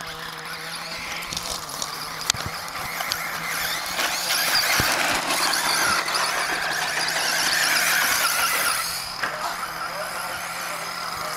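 Radio-controlled car driving over the dirt track, its motor whining and tyres scrabbling on loose dirt; the sound grows louder toward the middle and drops away about nine seconds in.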